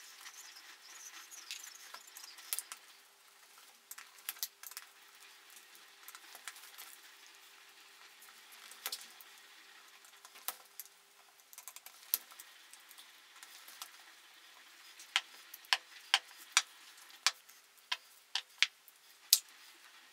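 Screwdriver, screws and small metal parts clicking and clinking against an outboard motor's carburetor as it is taken apart by hand. There is light rustling in the first couple of seconds, scattered single clicks, and a quick run of sharp clicks in the last five seconds.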